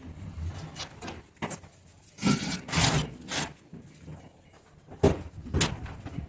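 Kitchen cupboard contents being handled and moved: scattered knocks and clicks, a stretch of rustling scraping about two seconds in, and two sharp knocks near the end.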